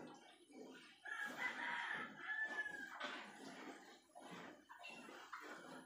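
A rooster crowing once, starting about a second in and lasting about two seconds, heard faintly.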